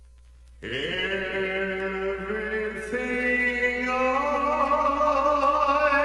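Dark ambient music: a held, chant-like drone that comes in suddenly about half a second in and shifts pitch in steps a few times.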